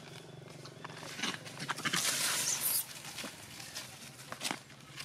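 Dry fallen leaves crackling and rustling as macaques scratch through them and walk over them: scattered crunches, with a dense rustle a couple of seconds in.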